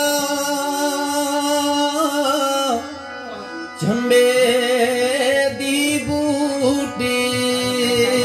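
Sufi devotional song: a male singer holding long, wavering notes over sustained harmonium tones, with light hand-drum strokes. The music breaks off for about a second roughly three seconds in, then resumes.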